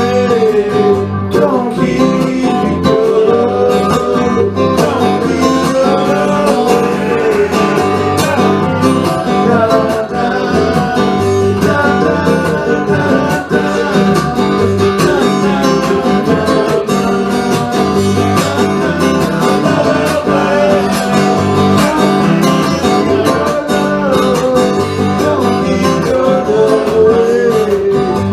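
Country-style acoustic guitar music with a steady low beat and a wavering melody line on top, in a stretch with no sung words.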